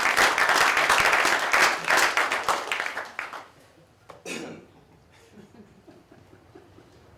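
Small audience clapping, dying away over about three and a half seconds, then a single short cough about four seconds in.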